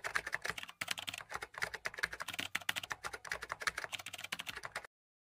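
Rapid computer-keyboard typing clicks, a typing sound effect, cutting off suddenly near the end.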